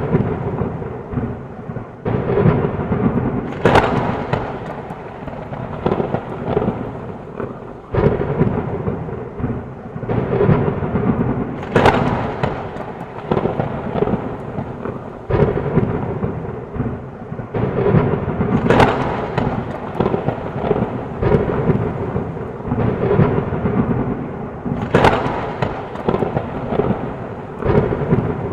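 Heavy rain falling steadily through a thunderstorm, with rumbling thunder. Sharp thunderclaps crack about four times, roughly every seven seconds.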